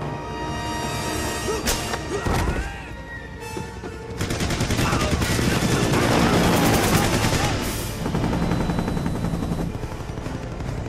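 Rapid automatic gunfire over dramatic film-score music, densest and loudest from about four to eight seconds in.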